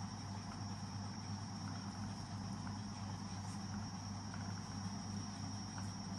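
Steady background noise: a low hum with a constant high-pitched whine, unchanging throughout.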